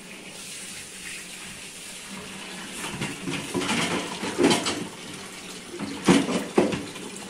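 Water running from a tap into a plastic basin of couscous grains and water: a steady splashing stream, with a few louder sudden sounds about four and a half and six seconds in.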